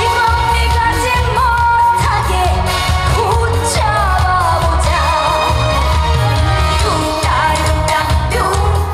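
A woman singing a trot song live, with her voice held and wavering on long high notes, over loud amplified backing music with a heavy bass beat.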